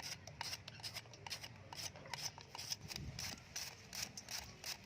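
Crisp, somewhat irregular cutting strokes, about three to four a second, of a blade going through vegetables.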